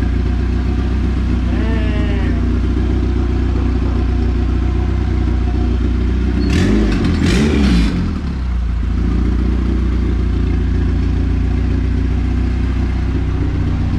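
Turbocharged Honda B20 VTEC four-cylinder idling steadily, revved briefly about halfway through with a burst of hiss, then settling back to idle.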